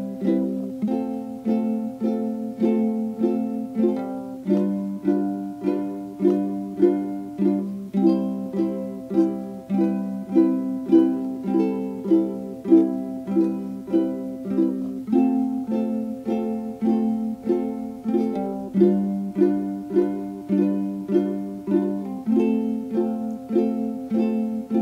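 Background music: a plucked string instrument strumming chords in a steady bouncy rhythm, about two plucks a second, with the chord changing every few seconds.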